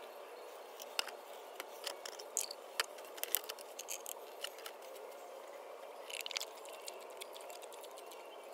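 Motor oil being poured from a plastic quart bottle through a flexible plastic spout into an engine's oil filler neck, with scattered light plastic clicks and taps over a faint steady hiss, a quick run of clicks about six seconds in.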